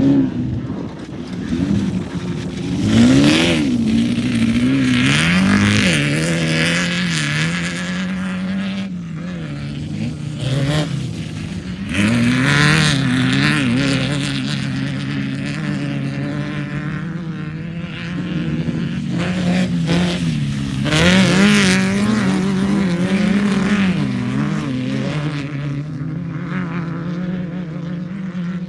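Off-road race vehicle engines running hard on a dirt course, the pitch rising and falling again and again as they rev and back off, with louder surges of engine and tyre noise every several seconds.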